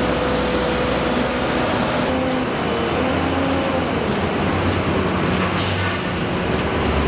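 Steady engine noise from motor vehicles or machinery, with low hum tones that shift in pitch every second or two.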